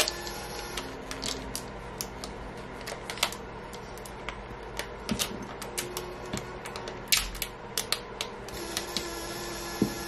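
Irregular light clicks and crackles of transfer tape and vinyl being pressed and smoothed with fingertips and nails onto a curved ceramic mug, with a denser cluster of clicks about seven seconds in.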